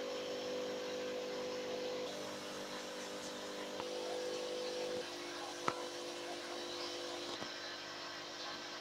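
Steady hum and hiss of aquarium air pumps and filters, with several held humming tones that shift as the camera moves between tanks. One sharp click about six seconds in.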